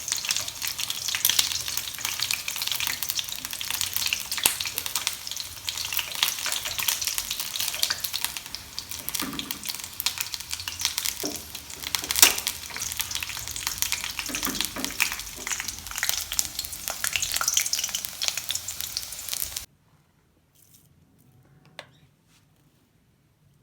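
Food frying in hot oil: a dense, steady crackling sizzle full of small pops, which cuts off abruptly near the end.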